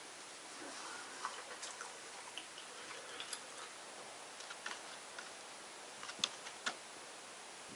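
Faint scattered clicks and light taps over a quiet hiss, with two sharper clicks a little after six seconds in.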